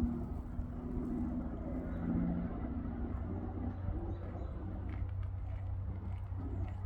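Low, steady hum of a motor vehicle engine running, with a held tone that shifts in pitch during the first few seconds.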